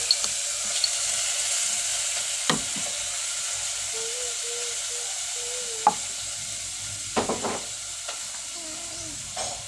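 Steady high hiss with a few scattered soft taps and squelches as hands squeeze and roll sticky munchkin dough.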